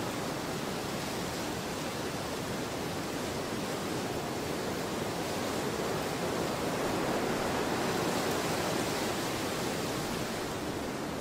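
Steady rushing noise with no tone or rhythm, swelling slightly a little past the middle.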